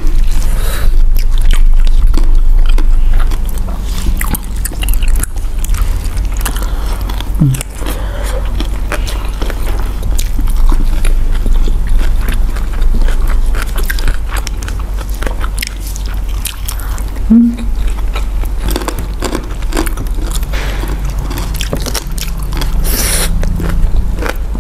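Close-miked eating sounds: chewing and biting, with many small wet clicks and smacks, as roast duck and fried sides are eaten by hand. A steady low hum runs underneath.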